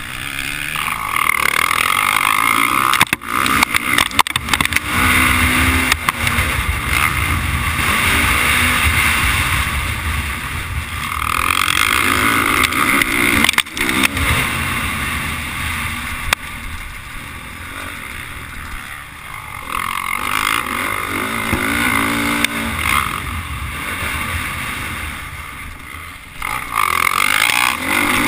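Motocross bike engine revving up and down as it is ridden hard around a dirt track, pitch rising and falling with each throttle change, heard from a camera mounted on the bike with wind rush over the microphone. A few sharp knocks come from the rough track, around three to four seconds in and again near the middle.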